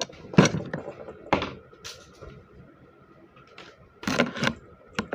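Small objects being handled on a workbench: a handful of sharp knocks and clatters, with a cluster of them about four seconds in, over a faint steady high hum.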